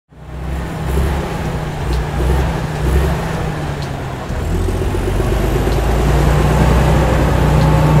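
Cartoon sound effect of a heavy construction vehicle's engine running, a low rumble that swells about once a second at first and settles into a steadier, fuller drone about halfway through.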